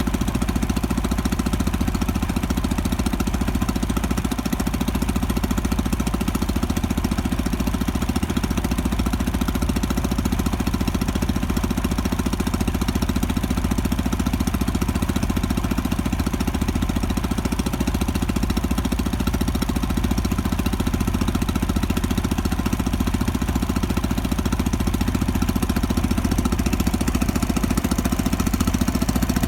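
Small fishing boat's engine running steadily, with no change in speed.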